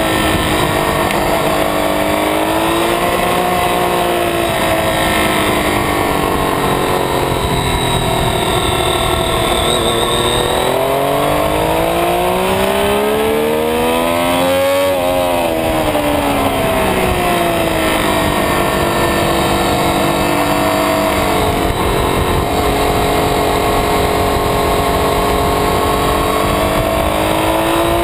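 Triumph Street Triple's 675 cc three-cylinder engine heard onboard at track pace, its pitch rising and falling with the throttle. It climbs to a high peak about halfway through, then drops sharply.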